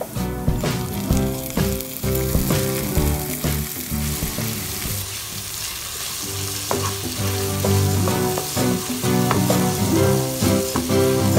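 Chopped onion and tomatoes sizzling in hot oil in a nonstick wok, with a wooden spatula stirring and scraping through them. Background music plays underneath.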